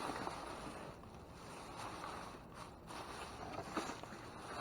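Wind rushing over the microphone, a steady noise that swells and fades.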